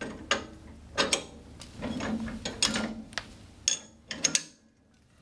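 Metal clicks and clanks from the pull bar and hitch bail of a Farmall Cub's fast hitch being worked by hand, as the pull bar is shifted over to another hole. About ten sharp knocks, some in quick pairs, then the noise stops short near the end.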